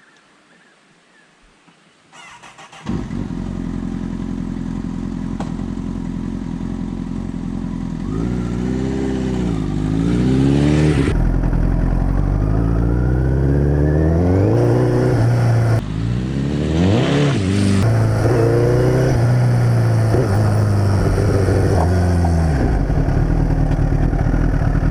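Honda CBR1000RR's inline-four engine starting up about three seconds in and idling. It is then revved up and down a few times and held at higher revs before dropping back to idle near the end.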